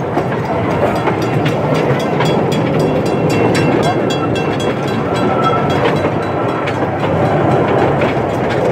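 An open-air passenger train rolling along the track: a steady running rumble, with the wheels clicking rapidly over the rails, about four clicks a second, through the middle of the stretch.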